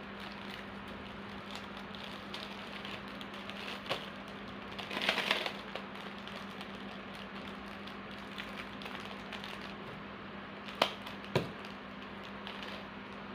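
Hands packing small bird leg rings: a brief rustle about five seconds in, and sharp small clicks, two louder ones close together near the end, over a steady low hum.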